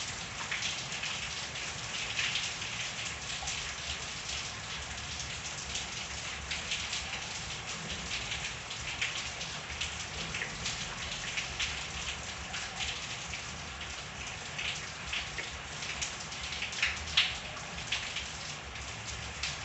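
Steady rain falling in a backyard, with many individual drops pattering and ticking on surfaces over a constant hiss.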